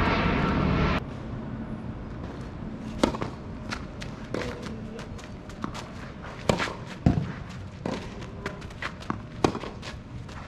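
A loud steady rush of noise cuts off abruptly about a second in. Then comes a tennis rally: sharp racket-on-ball strikes and ball bounces, roughly one every half second to second, with footsteps on the court.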